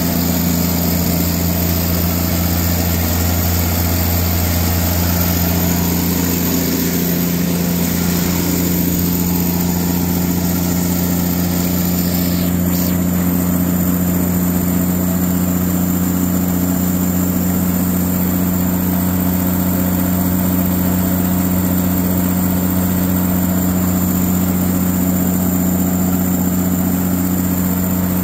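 Katolight 110 kVA generator set's engine running steadily at constant speed, with an even low hum, while the generator puts out voltage.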